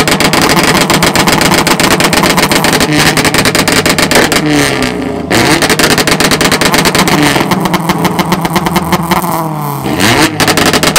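A Honda car engine revved hard through a loud exhaust, held high with a rapid crackling pulse and swinging up and down in pitch, easing off briefly about four and a half seconds in and again near the end.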